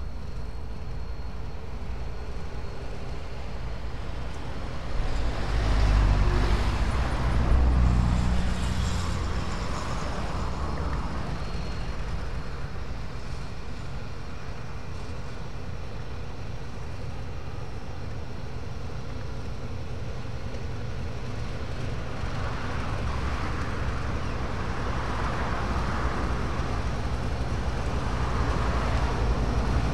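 Diesel locomotive engine running as the locomotive moves along the yard tracks: a steady low rumble that swells with a deeper engine note about five to nine seconds in, eases, then builds again near the end.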